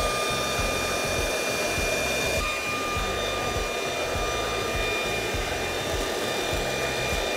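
Corded electric leaf blower running steadily with a high whine, blowing a roll of toilet paper off its dowel in streamers.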